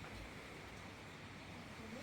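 Faint, steady background hiss with no distinct sounds.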